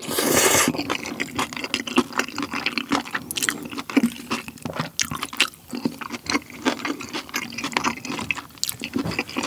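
A person slurping in a mouthful of black-bean-sauce noodles (jjajangmyeon) in the first half-second, then chewing with close-miked wet, squishy mouth clicks.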